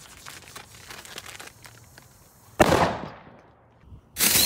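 Faint scattered crackling, then a single sharp firecracker bang about two and a half seconds in that echoes away over about a second. Another loud noise starts just before the end.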